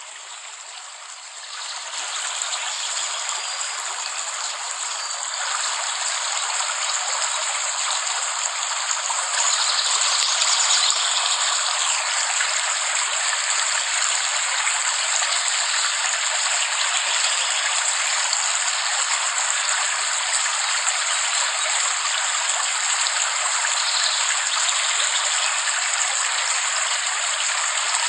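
Steady heavy rain, a continuous even hiss of falling water. It starts quieter and swells over the first few seconds, then holds steady.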